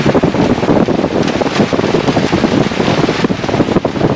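Wind buffeting the microphone inside a light airplane's cockpit in flight, a loud, steady, rough rushing mixed with the airplane's engine and propeller.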